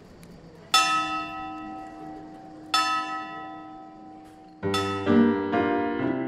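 A large bell struck twice, about two seconds apart, each stroke ringing on and slowly fading. About four and a half seconds in, piano music comes in over the fading ring.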